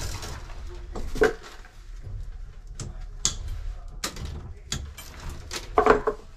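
Gloved hands handling a bundle of white electrical wires and pulling zip ties tight around it: scattered clicks, rustles and knocks, with a louder one near the end.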